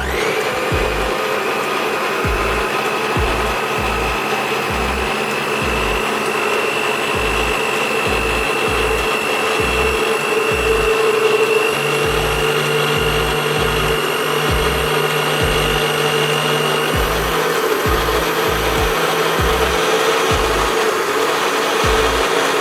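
Cosmos CM-1689 electric mixer's motor running steadily with a whine, switched on at the start. Background music with a regular bass beat plays underneath.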